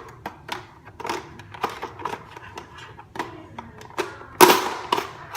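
Plastic clicks and rattles of a Nerf Rival magazine being handled and pushed into a Kayos blaster, with a louder clatter about four and a half seconds in.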